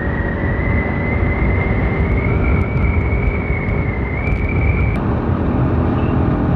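Bajaj Pulsar RS200 single-cylinder motorcycle engine running at road speed, with wind rushing over the microphone. A thin high whine climbs slowly in pitch and stops abruptly about five seconds in.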